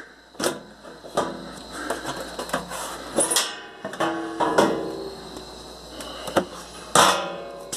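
Dell OptiPlex GX620 desktop case cover being unlatched and swung open: a series of clicks and knocks with short scraping rattles, the loudest clank about seven seconds in.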